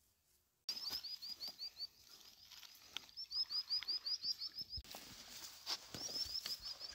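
A small bird repeating a short, high, falling chirp in quick runs of several notes a second, starting abruptly about a second in, with scattered footsteps on the stones.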